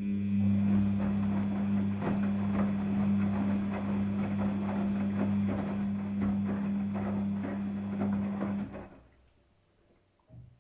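Daewoo DWD-FT1013 front-loading washing machine running a wash cycle: a steady low hum with many rapid, irregular clicks and knocks. It starts abruptly and dies away about nine seconds in.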